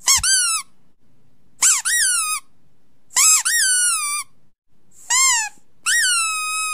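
A recording of high-pitched squeaky whines, five in a row, played back for a dog to hear. Each whine jumps up in pitch and then slides down. The fifth is drawn out, holding its falling tone for over a second.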